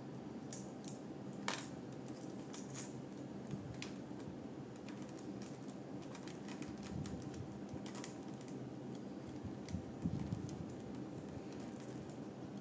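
LEGO bricks clicking as they are handled and pressed onto a model: scattered light plastic clicks, with a few duller knocks about ten seconds in.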